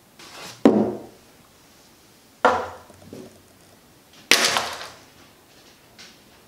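Three sharp knocks about two seconds apart, each dying away within about half a second.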